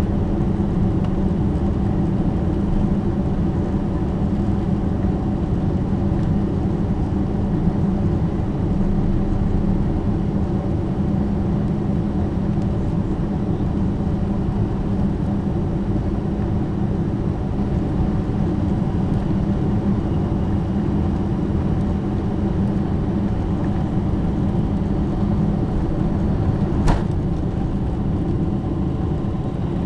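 Steady cabin noise inside a Boeing 747-400 as it taxis: a low, even rumble from the engines and the rolling airframe, with a few faint steady hums above it. A single sharp click comes near the end.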